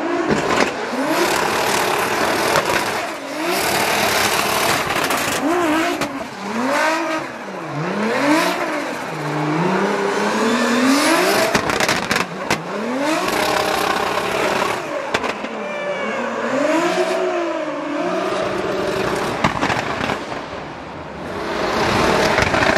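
Nissan R35 GT-R drift car's engine revving up and down again and again through a drift, over the steady screech of sliding tyres.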